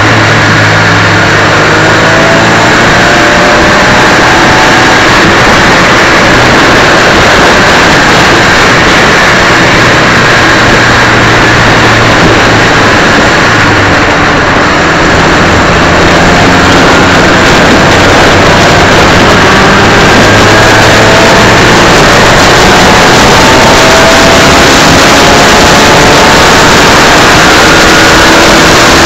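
Suzuki Swift Cup race car's engine running hard, its pitch climbing again and again as it pulls through the gears. Heard through an onboard camera mounted at road level, under a loud rush of wind and road noise.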